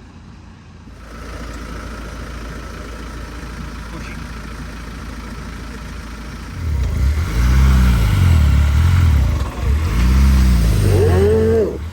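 Steady rushing noise, then a vehicle engine at the ford revving up and down twice, loudly, from about halfway through.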